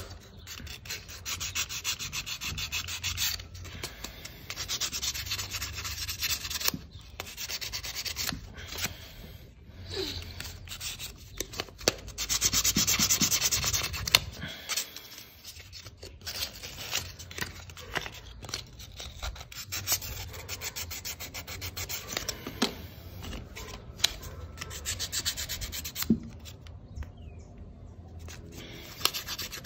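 Fine 1000-grit wet-and-dry sandpaper, used dry, rubbed in quick short strokes over the commutator of a small door-lock actuator motor. It is scrubbing off the black corrosion that keeps the central locking from locking and unlocking. The rubbing gets louder for a couple of seconds near the middle and eases off near the end.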